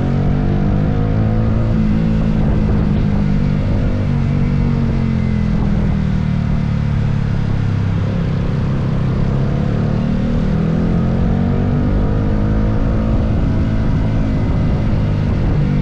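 Yamaha R15M's 155 cc single-cylinder engine running steadily under way, its pitch rising and falling gently with the throttle.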